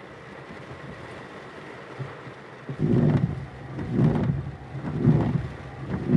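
Steady hiss of rain. From about three seconds in, loud low rumbling thumps come about once a second on top of it.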